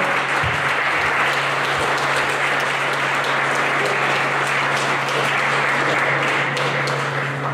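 Crowd applauding, with a low steady hum underneath.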